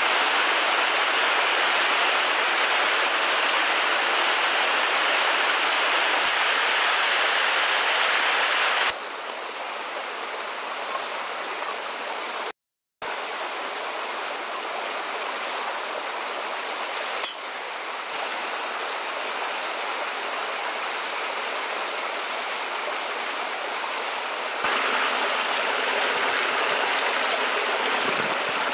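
Water of a forest stream rushing over a small rocky cascade, a steady rush. It turns quieter about nine seconds in, drops out for a moment near the middle, and grows louder again near the end.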